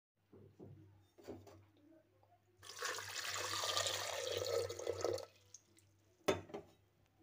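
Water poured into a metal pot over potatoes, splashing for about two and a half seconds, starting about two and a half seconds in. A few light knocks come before it and a single sharp knock follows near the end.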